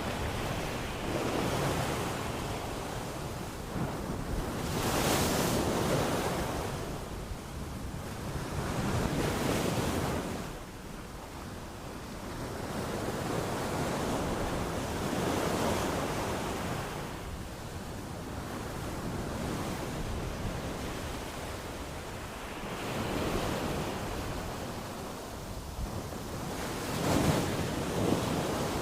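Ocean waves breaking and washing on a shore, a steady rush of surf that swells and falls in broad surges every few seconds, with one of the strongest surges near the end.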